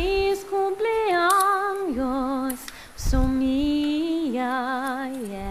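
Background music: a woman singing a slow melody in long held notes with vibrato. It runs in two phrases, each stepping down in pitch, with a short break about halfway through.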